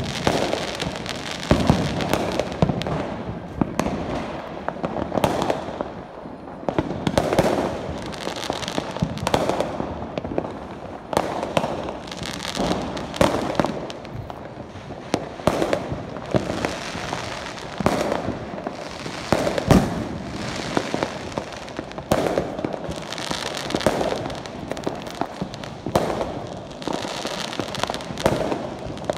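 Many fireworks and firecrackers going off at once: a near-continuous din of overlapping bangs and crackles, with sharper, louder reports every second or so.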